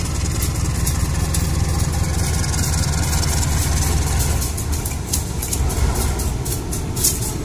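Diesel-electric locomotive engine running with a steady low rumble as the locomotive approaches slowly at the head of a ballast train.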